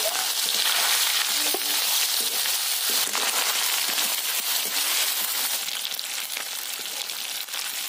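Small fish frying in hot oil in an iron kadai: a dense, steady sizzling hiss with frequent small crackles and pops, as a wire skimmer turns the fish.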